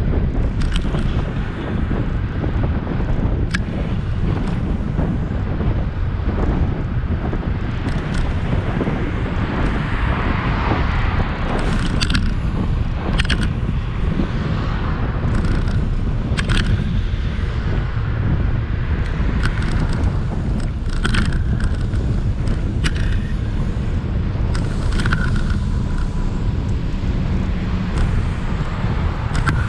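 Wind rushing over a GoPro's microphone on a moving bicycle: a steady low rumble, with a few sharp clicks scattered through it.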